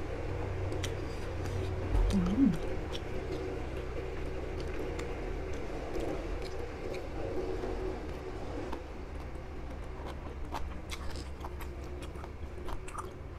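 A person chewing close to a clip-on microphone, eating long beans in spicy salad and fermented pork sausage, with scattered small wet mouth clicks. A steady background hum runs underneath. There is a short hummed vocal sound about two seconds in.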